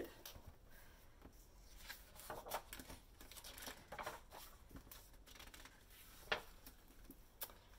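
Faint rustling and soft clicks of a hardcover picture book being opened and its pages turned, with a sharper tap about six seconds in.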